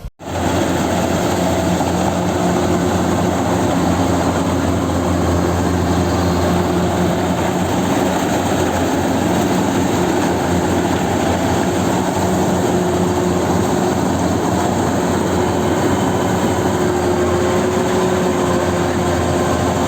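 Kubota DC-93 rice combine harvester running steadily, a loud and even diesel engine drone with a constant hum.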